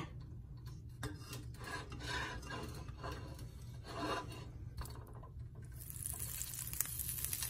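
Metal spoon rubbing and scraping against a nonstick frying pan as a lump of butter is pushed off it into warm olive oil. From about six seconds in, a faint steady sizzle as the butter starts to melt in the hot oil.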